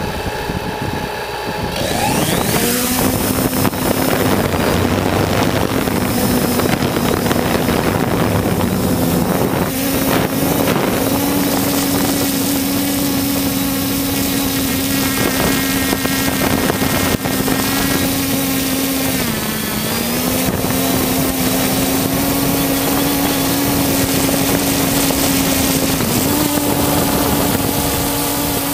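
3DR Solo quadcopter's motors and propellers, heard from its own onboard camera: about two seconds in they spin up with a rising whine as it lifts off, then hold a steady hum with wind noise on the microphone. The pitch dips briefly twice.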